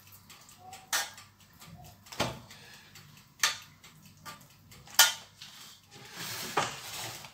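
Metal spoon knocking against a pizza pan while spreading tomato sauce over the dough: four sharp clinks about a second apart, then a short scraping stretch near the end.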